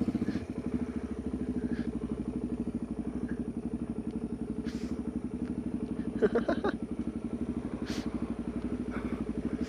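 Suzuki DR-Z400 supermoto's single-cylinder engine running steadily at low revs, with a rapid, even pulse. A few brief clicks, and a short louder blip about six seconds in.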